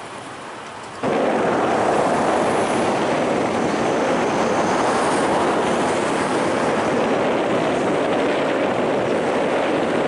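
Strong wind blowing across the microphone: a loud, steady rush that starts suddenly about a second in.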